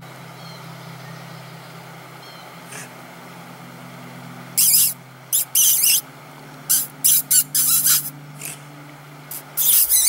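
Otter hidden in a rock crevice, giving several loud, harsh hissing calls in the second half, over a steady low hum.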